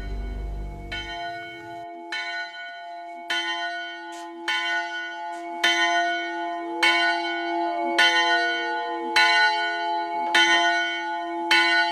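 A bell struck over and over at an even pace, about ten strokes a little over a second apart, each stroke ringing on into the next. Faint sliding tones run underneath.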